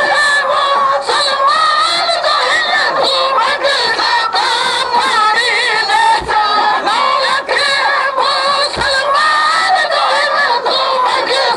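Voices chanting a noha, a Shia mourning lament, in a loud unbroken wavering melody, with frequent sharp beats cutting through it.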